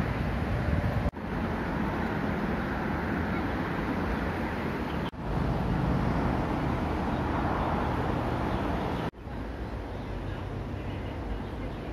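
Steady hum of road traffic, an even rushing noise heavy in the low end, cutting out for an instant three times.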